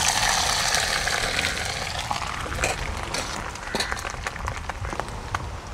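Pieces of boiled tuna fish roe going into hot oil in a pan and sizzling: loudest at first, then settling to a fading sizzle with scattered pops and spits.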